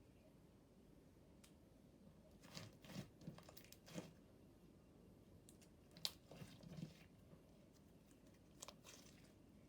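Faint crackling and tearing of a stiff, over-activated slime being handled and pulled apart, in a few short clusters, with one sharp click about six seconds in.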